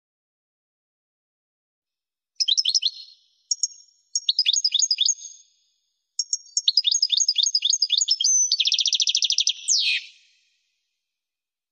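European goldfinch singing: starting about two seconds in, phrases of quick, high twittering notes that each slide downward, ending in a fast buzzy trill and a sharp slurred note.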